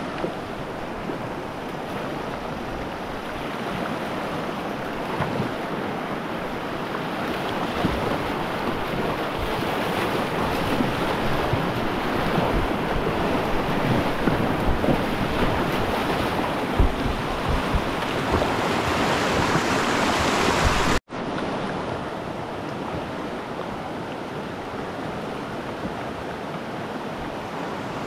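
Whitewater of a river rapid rushing around a kayak, growing louder as the boat runs through the rapid, with some wind buffeting the microphone. The sound cuts out abruptly about three-quarters of the way in and comes back as a quieter, steady river rush.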